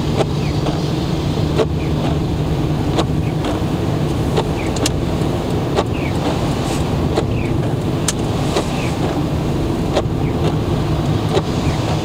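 Inside a Lada Granta's cabin on a wet road: steady engine and tyre noise. The windscreen wipers sweep about once every second and a half, each stroke giving a short click and a brief rubbery squeak.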